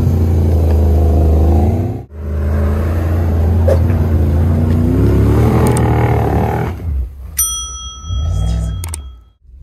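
Toyota 3UZ-FE V8 in a UAZ Patriot revving hard under load as the tyres spin through deep snow, its revs rising and falling. The sound drops out for an instant about two seconds in. Near the end the engine fades and a short electronic jingle with clicks plays.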